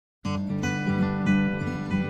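Intro music played on plucked strings, starting suddenly just after the start.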